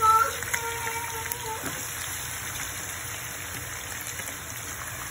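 Chicken pieces sizzling in a pot on the stove: a steady hiss, with a brief held tone over the first second and a half.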